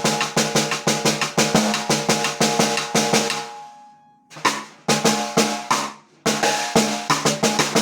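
A 13 by 4 piccolo snare drum, a Slingerland-style replica, played in quick runs of strokes broken by two short pauses. Each hit rings with a clear drum tone.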